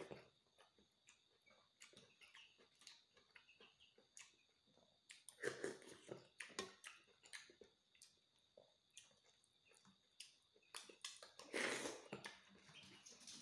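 Close-miked mouth sounds of a person eating soft larvae and rice: quiet chewing with many small wet clicks. There are two louder mouthfuls taken from a spoon, about five and a half seconds in and again near the end.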